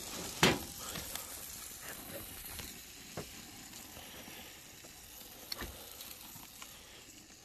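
Beef burger patties sizzling on a gas grill, the fat dripping into the flames and flaring up. A sharp knock about half a second in is the loudest sound, with a few small crackles later.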